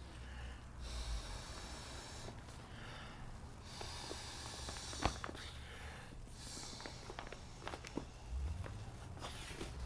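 Air being blown into an Intex Excursion Pro kayak seat's inflation valve in a series of whooshing puffs about a second long, with short gaps between them and small clicks of plastic and handling.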